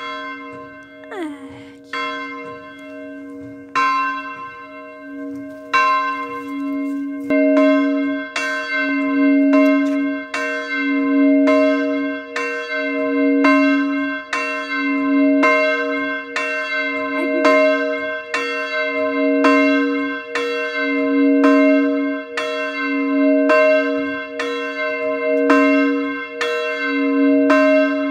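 Medium-sized church bell tuned to c2 ringing. The first few strokes come about two seconds apart, then they settle into a steady pace of about one stroke a second, each stroke ringing on into the next.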